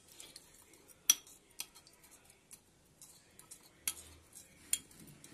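A steel spoon stirring tamarind paste into water in a glass bowl, clinking against the glass a few times, with the sharpest clinks about a second in and twice near the end.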